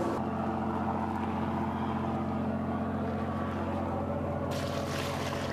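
Fishing boat's engine running steadily, a low even hum, with a hiss coming in near the end.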